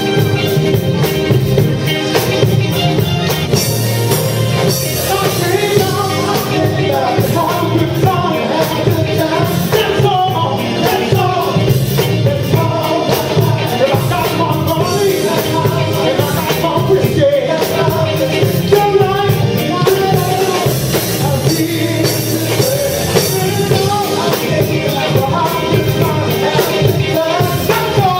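Live band music with singing: keyboards and guitar playing under a voice, continuous and loud.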